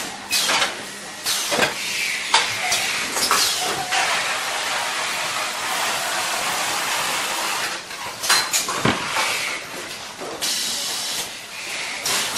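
An automatic carton sealing machine running: a steady hissing mechanical noise with scattered sharp clicks and knocks.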